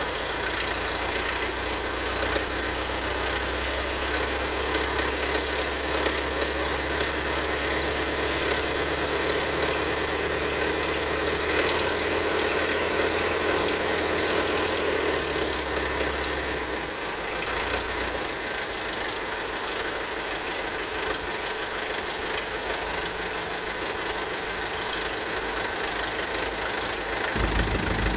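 Heavy diesel engine of construction machinery idling steadily. Its low hum drops away about two-thirds of the way through, and a deeper rumble comes back in near the end.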